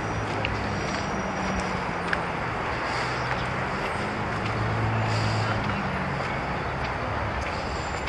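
Steady outdoor city background: a low traffic rumble that swells and fades, loudest about five seconds in, with a few faint clicks.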